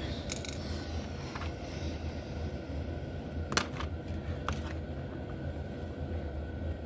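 A few small, sharp clicks and taps of tiny metal motor parts and tools being handled on a workbench, the sharpest about halfway through, over a steady low hum.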